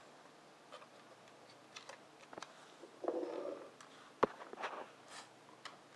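Wooden pieces of a Nina Ottosson Dog Fighter puzzle clicking and knocking lightly as a dog noses and shifts them, with a short rustle about three seconds in and one sharper knock just after four seconds.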